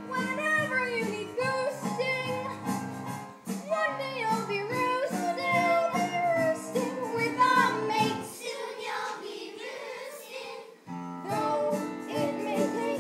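A musical-theatre number: young voices singing over a sustained instrumental accompaniment. The low chords drop out for a few seconds about eight seconds in, then come back.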